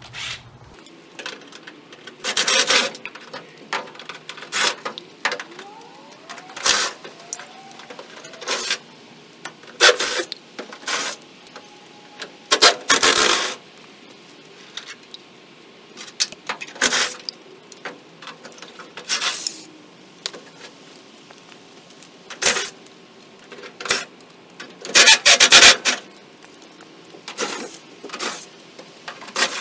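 Hand tools working on the front-end bolts of a 1953 Chevrolet: irregular metal clinks, rattles and scrapes, some in bursts of about a second, with quieter gaps between.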